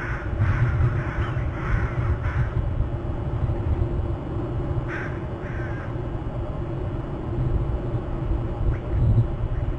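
Crows cawing: a quick run of about five harsh caws in the first couple of seconds, then one or two more about halfway through. A steady low rumble runs underneath.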